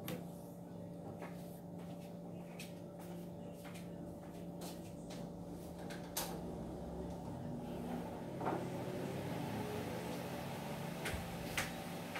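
Steady low room hum with scattered light clicks and knocks from household movement off to the side, the sharpest about six seconds in and a duller knock a couple of seconds later.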